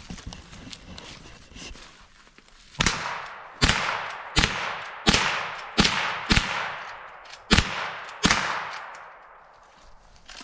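.22 Long Rifle rifle firing eight shots in fairly quick succession, starting about three seconds in, each crack followed by a ringing echo tail.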